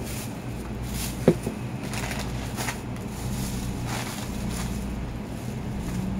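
Steady low hum with a few light clicks and one sharp knock about a second in.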